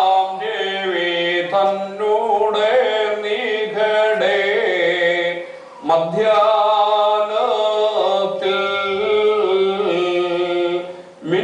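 Sung Syriac Orthodox liturgical chant: a melodic phrase, a short pause about halfway through, then another phrase that breaks off near the end.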